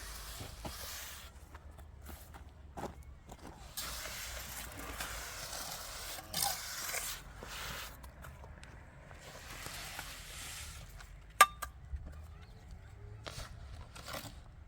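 Scraping and rustling noises in uneven stretches, with one sharp clink about eleven seconds in that rings briefly.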